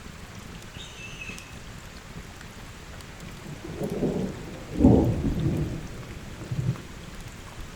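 Steady heavy rain, with a low rumble of thunder rising about four seconds in, peaking near five seconds and fading out over about three seconds.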